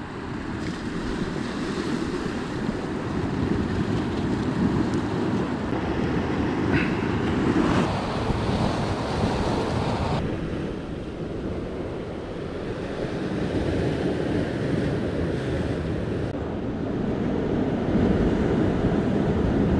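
Wind buffeting the microphone over the steady wash of sea waves on the shore.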